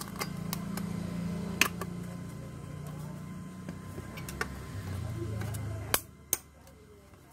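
Sharp plastic clicks and knocks from a car radio head unit's front frame and metal chassis being handled and pressed into place, over a low hum that drops in pitch and stops about six seconds in.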